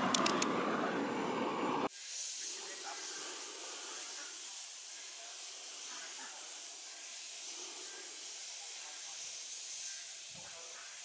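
A steady, even high hiss with faint scattered sounds in it. It follows about two seconds of louder rustling with a few clicks, which cuts off abruptly.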